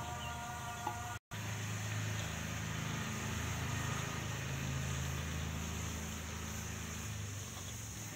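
Kitchen stove sounds: potato chips cooking gently in spiced oil in a kadai, a faint hiss over a steady low hum. The sound cuts out for an instant about a second in.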